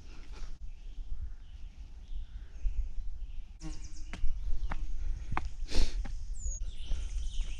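A hiker's footsteps on a dry, rocky dirt trail strewn with leaves, crunching step by step, louder and more frequent in the second half, over a steady low rumble.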